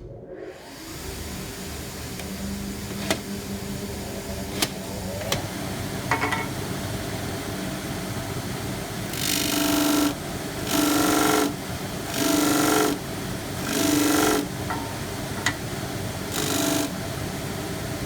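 Dust extractor and disc sander switching on and running with a steady drone, with a few sharp clicks early on. About halfway through, five loud sanding strokes, each about a second long, as a workpiece is pressed against the spinning disc.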